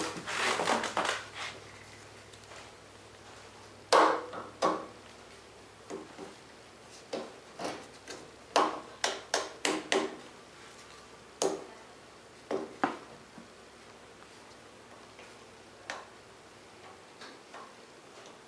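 Metal tools clacking against a magnetic tool holder as they are set on it and pulled off again: an uneven run of sharp knocks, some in quick clusters, with quiet gaps between.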